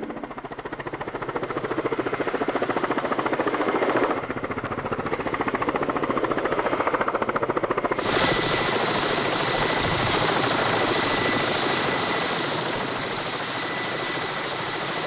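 Cargo helicopter running, its rotor beating in fast, even pulses. About eight seconds in the sound jumps abruptly to a louder, steady engine whine with a high hiss.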